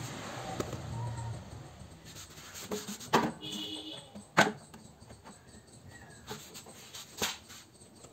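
Metal clicks and knocks from a Bajaj Chetak scooter's rear brake pedal linkage as it is worked by hand, with the loudest clack a little past the middle. A short squeak follows the first knock.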